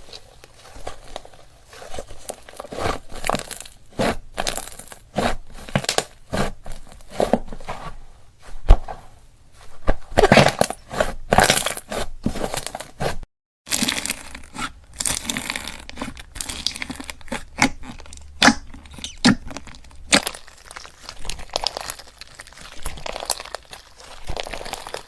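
Slime being squeezed and poked by hand, with many quick, irregular crackling pops and clicks. About halfway through there is a moment of dead silence, then the crackling goes on.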